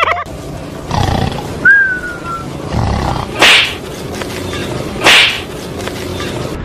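Lion roar, the kind laid over these prank clips as a sound effect, with two loud rasping roars about a second and a half apart in the second half.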